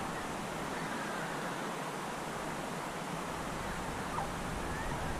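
Open-air crowd ambience: a steady hiss-like murmur from a large audience, with a few faint short chirps and a low rumble that rises about halfway through.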